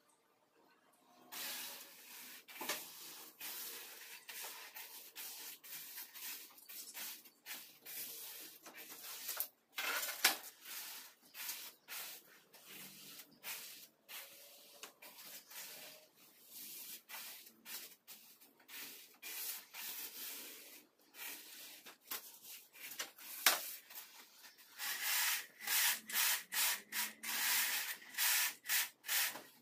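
Rough scraping of hand tools over a damp sand-and-cement mortar floor bed being levelled, with a straight-edge screed bar drawn back and forth across it near the end at about two strokes a second.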